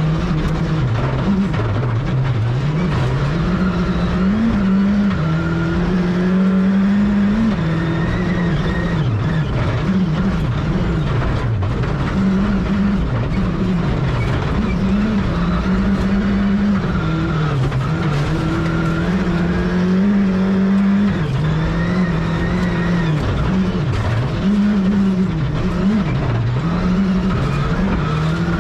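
Rally car engine heard from inside the cockpit at stage pace, its revs climbing and dropping again and again as it shifts gear and brakes for corners, over constant tyre and road noise.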